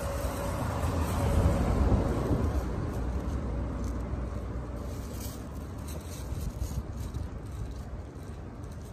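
Traffic rumble from a passing road vehicle, swelling about a second and a half in and then slowly fading.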